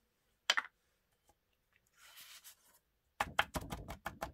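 Loose embossing powder sliding off black cardstock in a brief hiss, then the card tapped about eight times in quick succession against the paper-covered work surface to knock off the excess powder. One sharp tap comes about half a second in.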